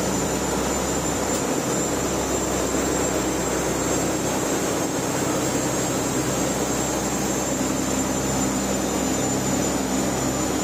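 Steady drone of a fishing boat's engine machinery, an even low hum under a wash of noise.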